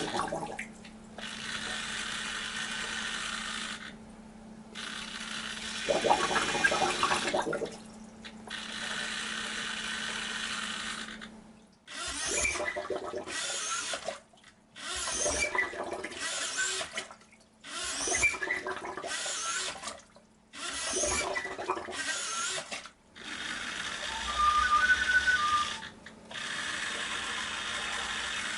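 Homemade bottle-squeeze ventilator running: a hobby servo whirs and air hisses through the bottle's valves. In the middle stretch it goes in short regular pulses with brief pauses, about one every second and a half, as the bottle is squeezed and released.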